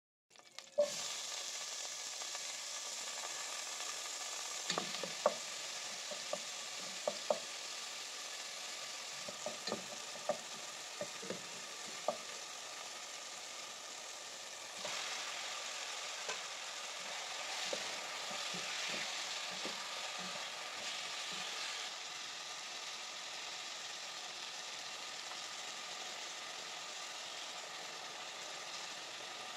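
Chopped tomatoes, and later pork pieces, sizzling in hot oil in a pot, with a spatula clicking against the pot as they are stirred. The sizzle starts just under a second in and grows louder about halfway through.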